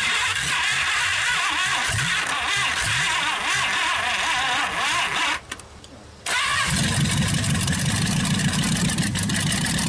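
1956 Packard 374 V8 engine being cranked by its starter in a first start attempt on an engine that had been stuck for years. The cranking stops for about a second about five seconds in, then resumes, heavier and louder.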